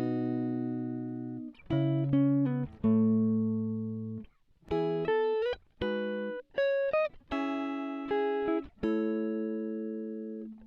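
Background music: a solo guitar plays slow, unaccompanied phrases, each note or chord ringing out and fading before the next, with short pauses between phrases.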